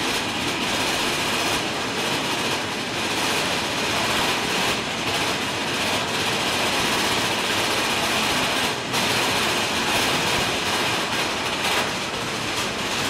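Big Thunder Mountain Railroad mine-train roller coaster running along its track: a steady rattle and rush of the cars and wheels on the rails.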